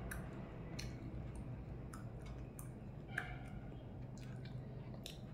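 Close-up eating sounds of someone chewing and sucking on small crabs in curry: scattered small wet clicks and smacks, about ten of them, the sharpest about three seconds in, over a steady low hum.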